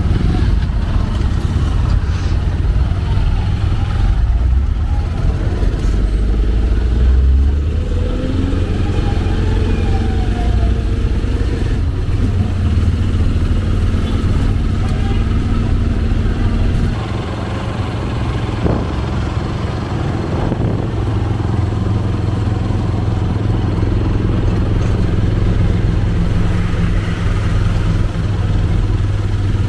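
Tuk-tuk (motorcycle taxi) engine running steadily during a ride, a loud low drone. The engine note drops about 17 seconds in, then picks up again.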